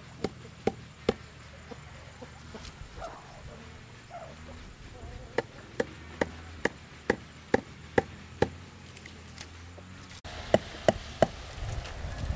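Hammer blows driving thin bamboo stakes into dry ground: runs of sharp, evenly spaced knocks, about two a second, with a pause in the middle.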